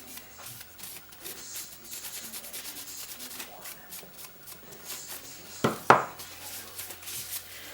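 Rag wet with acetone being scrubbed back and forth over a bronze brake backing plate, a run of quick rubbing strokes as the mounting surface is cleaned for epoxy. Two sharp knocks about six seconds in are the loudest sounds.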